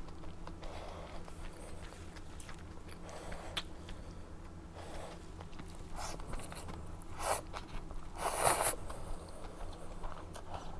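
Close-up eating sounds: a person biting and chewing food, with soft wet clicks throughout. Louder noisy bursts come about seven seconds in and again a second later.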